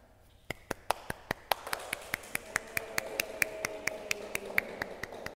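A small group applauding: sharp separate hand claps about five a second, starting half a second in and carrying on to the end.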